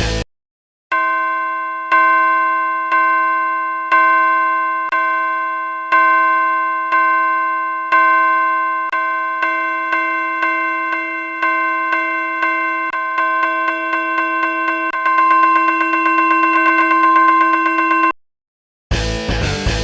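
Japanese railroad crossing warning bell, made deep and gong-like, ringing with each stroke dying away: about one stroke a second at first, speeding up steadily until it is a rapid, almost continuous ringing that stops suddenly near the end. Short bursts of loud noise come at the very start and in the last second.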